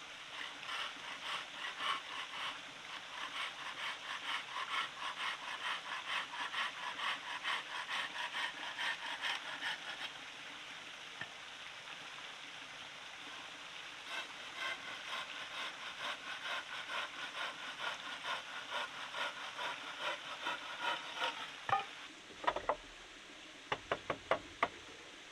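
Hand saw cutting through wood in steady back-and-forth strokes, about two to three a second, in two bouts with a short pause between. Near the end a few sharp wooden knocks follow.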